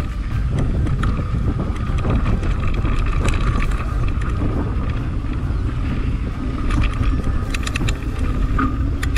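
Mountain bike rolling along a dirt singletrack, heard from a camera on the bike or rider: a steady low rumble of tyres and wind on the microphone, with scattered rattles and clicks as the bike goes over bumps.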